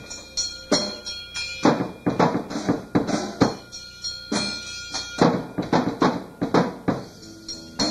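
Rock drum kit played live with silencing pads on the drum heads: heavy hits about once a second with cymbal crashes and lighter strokes between, over a band's recorded backing track. Pitched bass and guitar notes stand out near the end.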